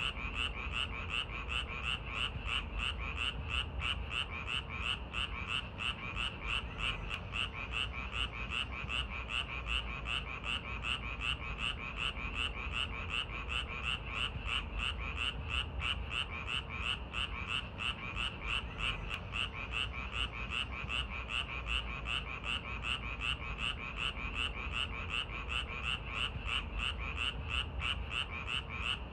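Frogs calling in a steady chorus: a fast, even run of croaks, about three a second, over a low background rumble.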